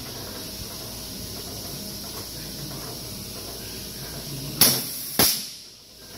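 Mechanical flywheel punch press running, its motor and flywheel giving a steady hum, with two sharp bangs about half a second apart near the end as the press cycles; the second bang rings away briefly.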